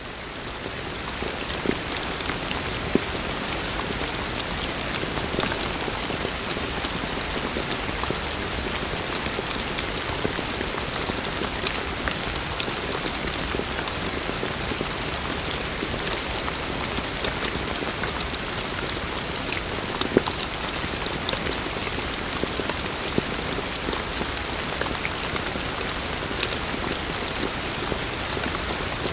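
Heavy rain falling steadily: a dense, even hiss dotted with sharper individual drop hits, fading in over the first second or two.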